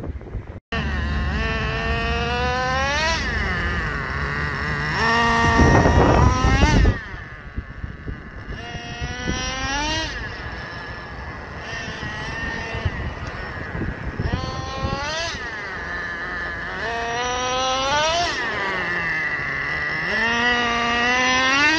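Traxxas TRX 3.3 two-stroke nitro engine in a Slayer Pro 4x4 RC truck, revving up again and again in short throttle bursts. Each burst rises in pitch for about two seconds, then drops back toward idle as the truck brakes, about seven times; the loudest stretch is about five to seven seconds in. These are half-throttle break-in pulses on the engine's second tank of fuel.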